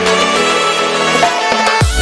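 Background music: a melodic track of sustained tones, with a deep bass beat and falling-pitch kick drum coming in near the end.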